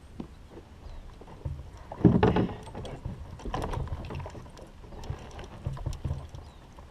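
Irregular knocks, clunks and rustling of gear being handled in a small boat, loudest in a burst about two seconds in.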